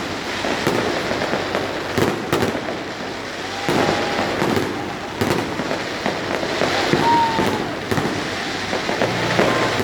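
Fireworks going off: steady dense crackling with frequent sharp bangs, and a couple of short whistling tones.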